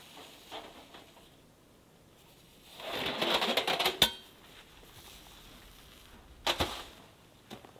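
A wooden pole scraping and rubbing against canvas as it is pulled out of the top of a Savotta Hawu 4 hot tent, with tent fabric rustling. This lasts about a second and ends in a sharp knock. A couple of shorter knocks follow near the end.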